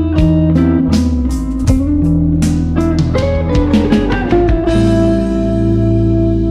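Background music: plucked guitar notes over a bass line with light drums, settling into a long held chord about three-quarters of the way in.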